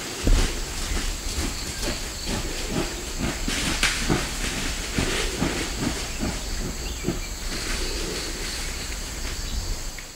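Greater one-horned rhinoceros pushing through forest undergrowth: rustling and crackling of leaves and branches at about two strokes a second over a steady low rumble. A steady high insect drone runs underneath.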